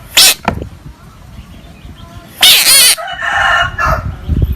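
Loud animal cries: a short harsh cry just after the start, then a louder harsh screech about two and a half seconds in, followed at once by a shorter call with clearer pitch.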